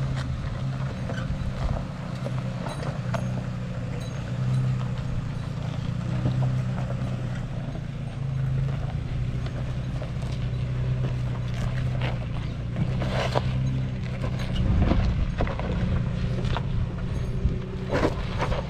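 Off-road truck engine running at a low, steady crawl, with scattered knocks and clunks of tires and suspension working over rocks, heaviest around the middle and near the end.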